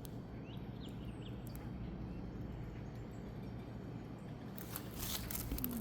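Steady background hum and hiss with a few faint bird chirps in the first second, and faint rustling near the end.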